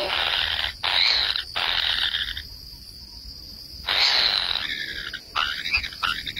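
Harsh, rasping animal calls that break off abruptly several times, with a gap of about a second and a half in the middle.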